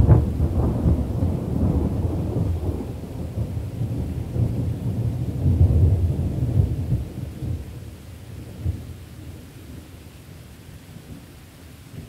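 Thunder rolling over falling rain: the rumble is loudest at the start, swells again about six seconds in, then dies away to a low, distant rumble under the rain.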